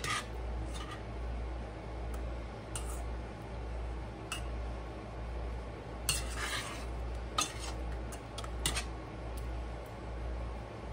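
Utensil stirring meatballs in thick gravy in a stainless steel saucepan, clinking and scraping against the pan's sides and bottom now and then, with a longer scrape about six seconds in.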